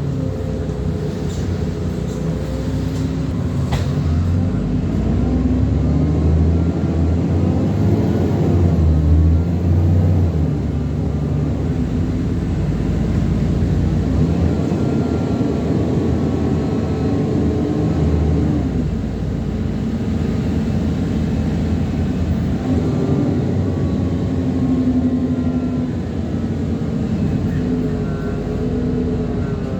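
ADL Enviro400 Trident double-decker bus drivetrain running under way: a low engine drone with whining tones from the engine and gearbox that rise and fall as the bus speeds up and slows.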